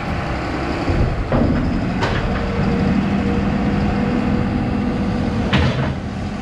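Heavy farm vehicle's diesel engine running steadily. Three sharp knocks or clanks are heard over it: one a little over a second in, one at about two seconds, and one near the end.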